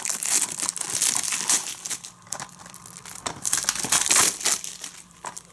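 Plastic shrink wrap crinkling and tearing as it is peeled off a plastic Blu-ray case, a dense run of crackles that thins out near the end.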